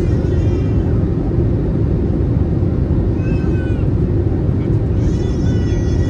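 Steady loud rumble of engine and airflow noise inside the cabin of an Airbus A320-216 in flight. Three short high-pitched whining calls sound over it: at the start, about three seconds in, and near the end.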